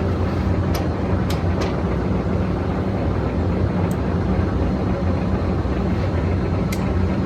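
POREBA TRP93 engine lathe running: a steady low mechanical hum with a few short, light clicks.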